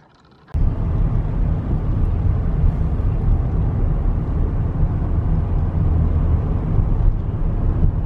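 Steady low rumble of a moving car's road and engine noise heard inside the cabin, cutting in abruptly about half a second in after near silence.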